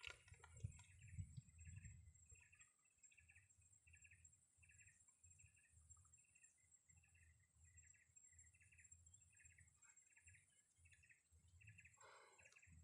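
A bird calling faintly in a steady run of short, evenly repeated chirps, about two a second, over a low uneven rumble.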